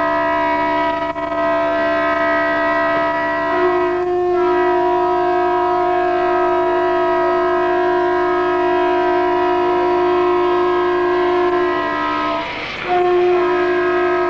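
Several loud, steady horns or whistles sounding together in a chord and held on. Their pitches shift about four seconds in, and they break off briefly near the end before sounding again.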